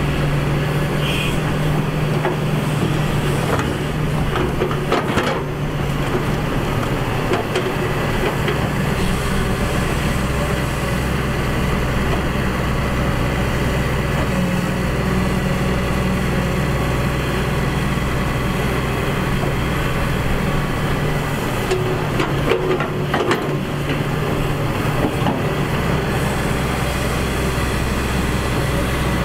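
Excavator's diesel engine running steadily under load, with a few sharp knocks about five seconds in and again past the twenty-second mark.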